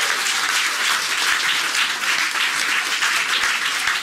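A crowd applauding, a dense patter of many hands clapping at a steady level.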